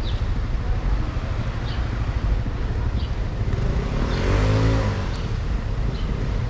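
Street ambience: a steady low rumble of traffic and wind, with a motor vehicle passing on the road about four seconds in, its engine pitch sweeping as it goes by.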